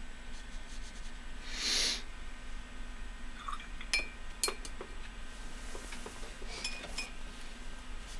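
A short breath about two seconds in, then a few light glass clinks with brief ringing between about four and seven seconds: a paintbrush tapped against a glass water jar.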